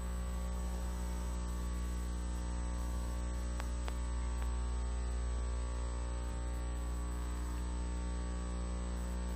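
Steady electrical mains hum with a stack of overtones and a light hiss, with two faint clicks a little under four seconds in.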